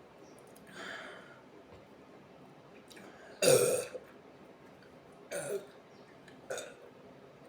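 A woman burping several times, gassy from a carbonated sparkling drink: a soft burp about a second in, a loud one about three and a half seconds in, then two shorter burps.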